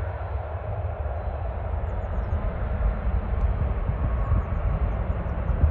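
Aircraft engine noise: a steady rumble that grows slightly louder toward the end.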